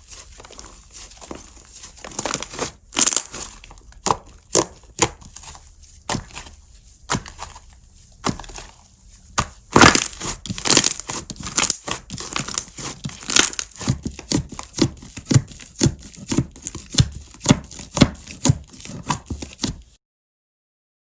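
Slime being pressed and squished, giving sharp wet clicks and pops. About halfway through the presses fall into a steady rhythm of roughly two a second. The sound cuts off suddenly just before the end.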